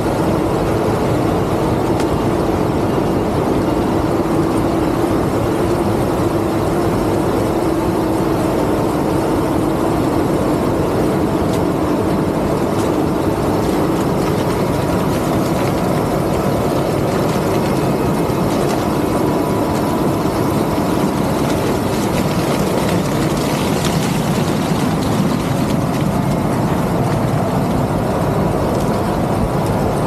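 Claas Lexion 8800 combine harvester running steadily while harvesting maize with its corn header: a dense, even drone of engine and machinery.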